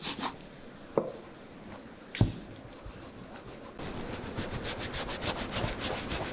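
Gloved fingers rubbing oiled leather cream into a leather boot, a quick rhythmic scrubbing. It drops away briefly, with two sharp knocks about one and two seconds in, then picks up again a little before the halfway point.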